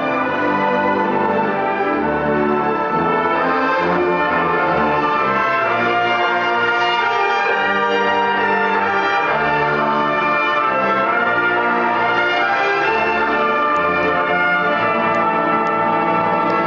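Youth symphony orchestra playing a loud, full passage, with low notes shifting every second or so beneath sustained chords.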